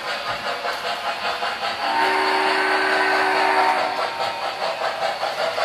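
An O-gauge model steam locomotive's onboard sound system, chuffing in an even rhythm as the train runs. About two seconds in, it blows a multi-note steam whistle chord for about two seconds.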